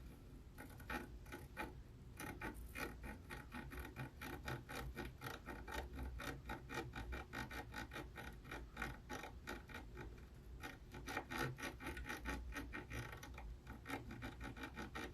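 Soldering work on a PS5's HDMI port: faint, quick crackling ticks, several a second, with a low steady hum underneath.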